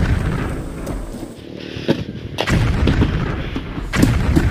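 Loud, deep booms and thuds over a low rumble: one hits just before the start, others about two and a half and four seconds in, with smaller knocks between.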